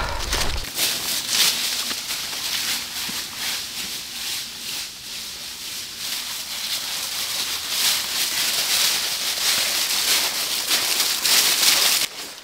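Footsteps crunching and rustling through a thick layer of dry fallen leaves, as a hiker with a heavy pack walks over the forest floor.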